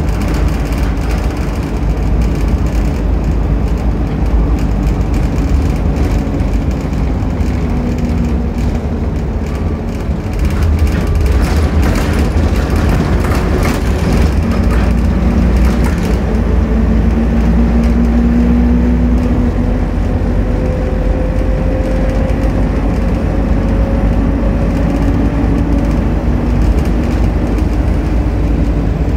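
Optare Solo M950 bus heard from inside the saloon while driving: steady engine and road rumble, with the engine note rising and falling as it pulls away and changes gear. Around the middle come bursts of clattering rattles from the bus's fittings, typical of a rough, worn bus.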